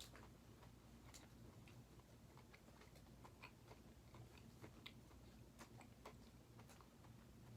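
Faint chewing of a chocolate square, with soft scattered mouth clicks over a low steady hum.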